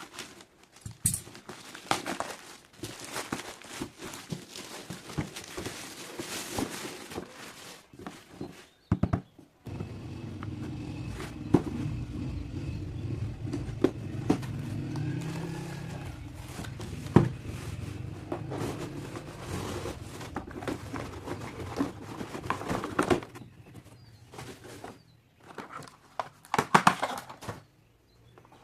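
Packaging being handled and opened by hand: rustling, crinkling and light knocks and clicks. A steady low hum runs underneath from about ten seconds in.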